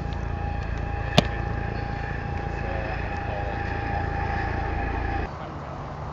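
Steady low wind rumble on the microphone with a thin steady whine over it, and one sharp slap about a second in. The rumble drops off abruptly near the end.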